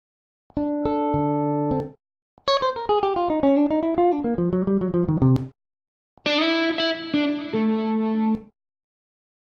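Three short musical notification tones played one after another, each cut off cleanly with silence between them; the middle one is a quick run of guitar-like notes that falls and then rises in pitch.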